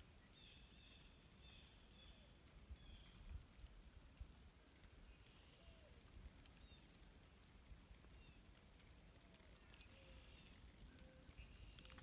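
Near silence outdoors in the snow: faint outdoor ambience with a few short, faint high bird chirps now and then and scattered soft ticks.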